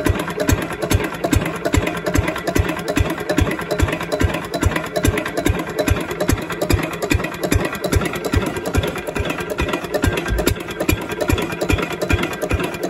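Lister-clone single-cylinder slow-speed diesel engine running steadily, each firing stroke making an even, regular low beat over a constant mechanical clatter.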